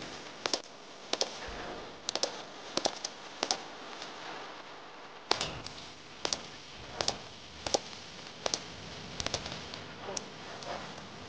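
Sharp cracks of .22 rimfire biathlon rifles firing on a shooting range, irregularly spaced at roughly one a second, some single and some in quick pairs, over a steady hiss of outdoor background noise.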